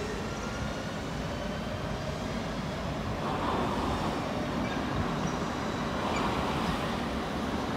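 BLS Re 4/4 electric locomotive hauling passenger coaches slowly into a station: a steady rumble of wheels and running gear with faint whining tones, growing a little louder from about three seconds in as it draws closer.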